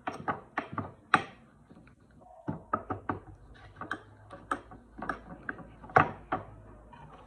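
A spoon clinking and knocking against a ceramic bowl while stirring a thick cream, in an irregular string of sharp clicks. There is a short lull about two seconds in, and the loudest knock comes near the end.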